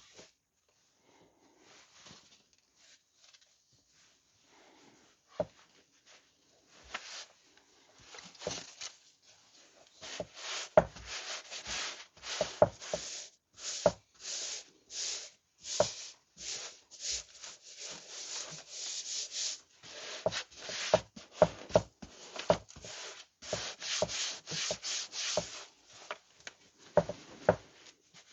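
Hands rubbing and pressing a thin fabric layer down onto a glued motorcycle seat, in repeated rubbing strokes. It starts faint and sparse, then about a third of the way in becomes a quick run of strokes, roughly two a second.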